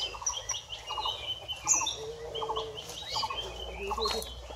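Birds calling: a short rattling call repeated about twice a second, with higher chirps over it.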